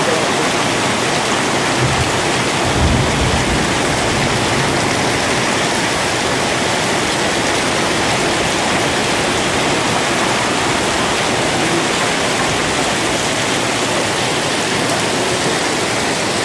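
Heavy hail and rain pelting down steadily on the beach, terrace and furniture, loud and unbroken. A brief low rumble comes about two to three seconds in.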